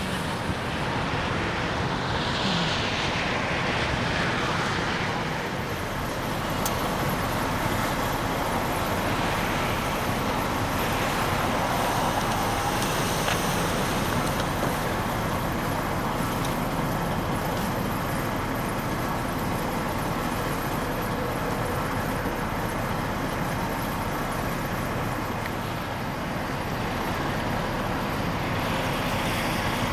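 Steady vehicle noise from trucks and road traffic at a truck stop, with a faint falling whine a couple of seconds in.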